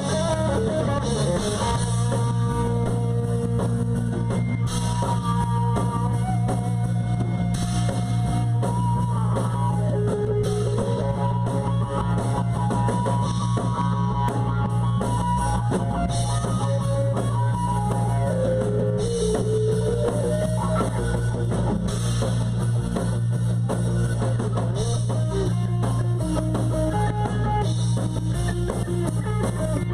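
Live rock band playing at full, steady volume: guitar over a bass line and a drum kit.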